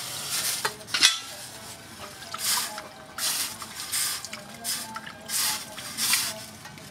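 Hand-scooped water splashing over a steel knife blade held in tongs above a water trough. The splashes come again and again, roughly one every three-quarters of a second, with a sharp metallic clink about a second in.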